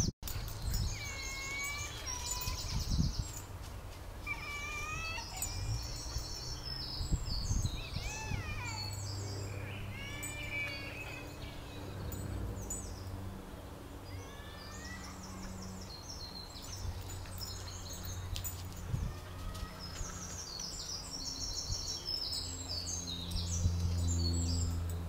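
Garden songbirds singing, a mix of quick high chirping phrases and curved whistled notes, over a low steady hum that grows louder near the end.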